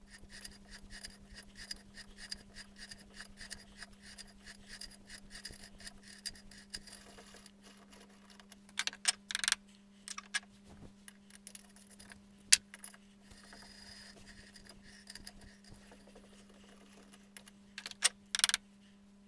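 Hand tapping of a 5/16 in Whitworth internal thread in a small insert held in a vise: a run of small metallic ticks and scrapes, with a few louder clicks, over a steady low hum.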